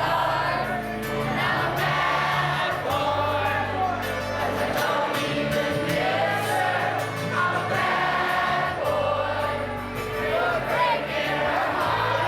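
Music: a group of voices singing over held bass notes.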